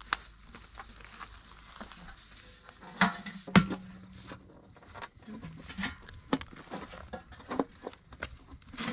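Single-wall black stove pipe being pressed together along its snap-lock seam on bubble wrap: scattered sheet-metal clicks and clanks, the two loudest about three seconds in, the second followed by a brief low ring.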